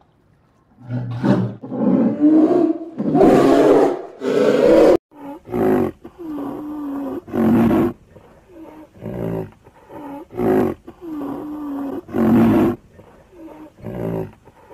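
A large animal calling: several long, loud roars in the first five seconds, then a run of shorter calls, about one a second, each rising and falling in pitch.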